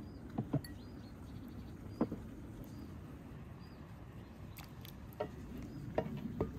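A wooden ladle clicking and knocking against an enamel bowl and a cut-glass dish as pomegranate seeds in syrup are spooned in, with wet patters of the seeds: a few scattered sharp clicks, the loudest about two seconds in.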